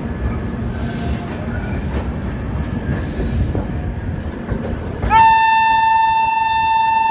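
Low rumble of a passenger train standing at the platform. About five seconds in, a locomotive horn sounds one long, steady, high note, the departure signal as the train starts to pull out.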